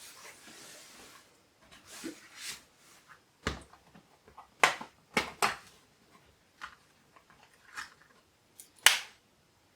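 Scattered sharp clicks and light knocks of a screwdriver and bits from an iFixit toolkit being picked out and handled, with a short rustle at the start and the loudest click near the end.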